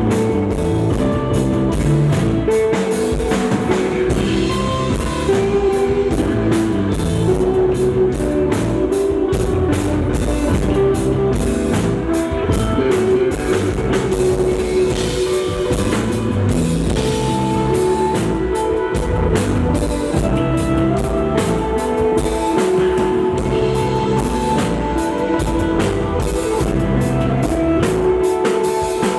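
Live rock band playing loud amplified music: electric guitar holding sustained notes over a drum kit keeping a steady beat.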